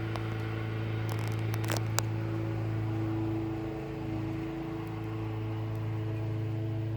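A motor running at a steady speed, a constant low hum, with a few sharp clicks about one to two seconds in.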